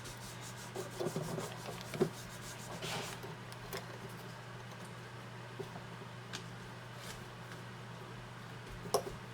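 Quiet workbench handling of the mandolin and its tuner-and-wire cleat jig: small wooden rubbing and clicks, a quick run of light ticks in the first few seconds and one sharp tap near the end, over a steady low electrical hum.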